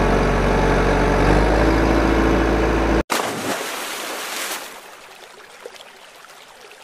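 Truck engine sound effect running loud and steady with a deep rumble, then cutting off abruptly about three seconds in. A splash of muddy water follows and fades to a faint water wash.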